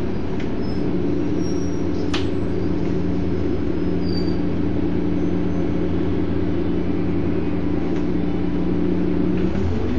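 Volvo Olympian 12M double-decker bus's diesel engine running at a steady pitch, heard from on board, with a single click about two seconds in. Near the end the engine note dips.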